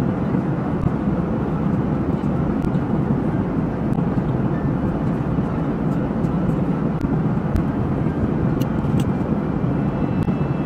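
Steady rumble of airliner cabin noise, the engines and airflow heard from inside the passenger cabin, with a few faint ticks.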